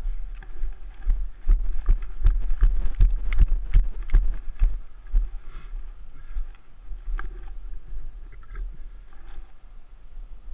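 Mountain bike riding over rough dirt singletrack: a constant low rumble with frequent sharp knocks and rattles from the bike. These are busiest over the first half and ease off after that.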